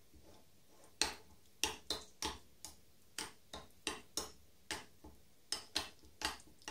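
Metal spoon clinking against a small glass bowl while stirring yogurt into mint sauce: a string of sharp, uneven clinks, about two or three a second, starting about a second in.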